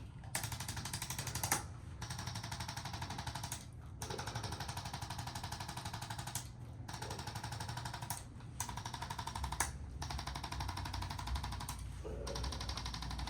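Handheld chiropractic adjusting instrument firing rapid, even mechanical pulses against muscles in spasm, in several runs of one to two and a half seconds with short pauses between them.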